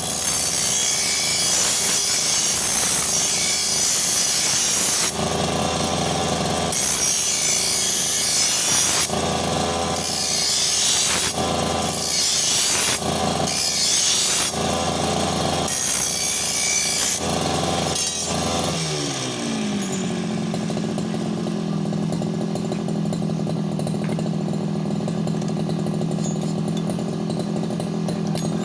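Brush cutter's small petrol engine revved hard and eased off again and again, then, about two-thirds of the way through, winding down in pitch to a steady idle.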